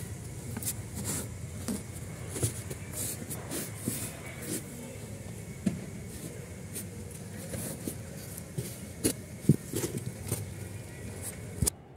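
Hands pressing and patting crumbly potting soil, giving frequent small crackles and scrapes over a steady background hum.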